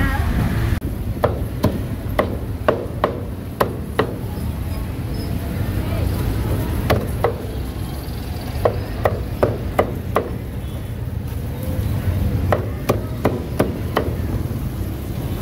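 Meat cleaver chopping roast duck on a thick wooden chopping block: sharp knocks in quick runs of several strokes, with short pauses between the runs.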